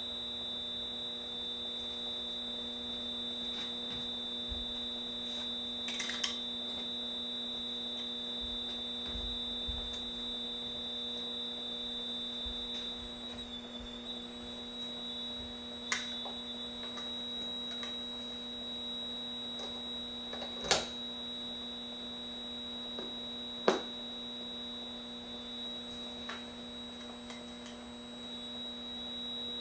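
Amplified electrical hum from small guitar amplifiers and cabled electronics: a steady layered buzz under a held high whine, which dips slightly in pitch about halfway through. Scattered small clicks, with two sharp pops in the second half.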